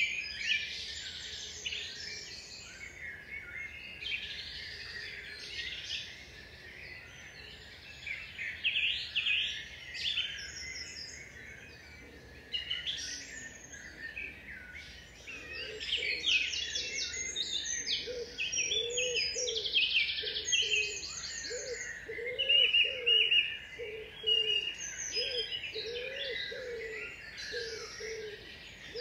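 Several songbirds singing and chirping at once, a busy chorus of quick high trills and whistles. From about halfway in, a lower short call joins, repeating over and over.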